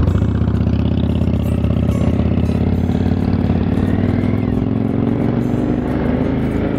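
V-twin motorcycle engine running under way, loud and pulsing; its pitch climbs and then drops about four and a half seconds in, like a gear change.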